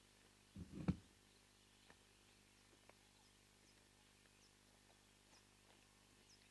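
Near silence: quiet outdoor ambience. About a second in there is one brief low thump ending in a sharp click, and later come faint, short, high downward chirps.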